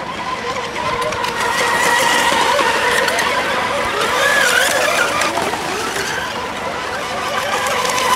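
Several radio-controlled racing model boats running flat out around a course, their motors making a high whine whose pitch wavers as they turn, over the hiss of spray.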